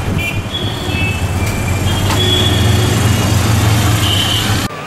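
Auto-rickshaw's small engine running with a loud steady low rumble as it drives along a road, with a few short high beeps over it. The sound cuts off suddenly near the end.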